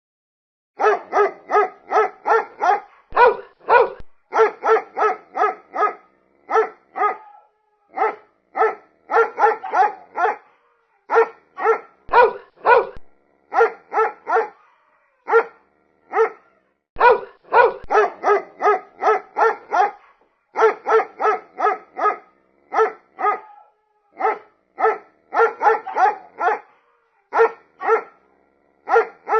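A dog barking repeatedly, in runs of several barks about three a second with short pauses between the runs.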